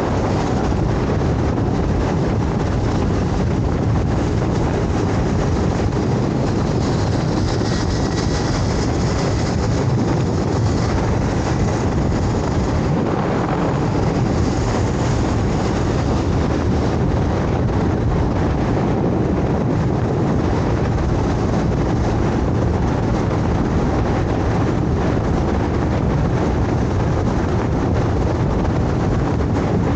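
Steady wind rush on the microphone and road noise from a moving scooter, with no breaks.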